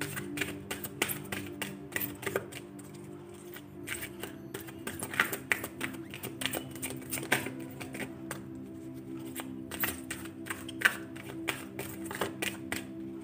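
Oracle card deck being shuffled by hand: a quick, irregular run of crisp card clicks and slaps. Steady background music with held notes plays underneath.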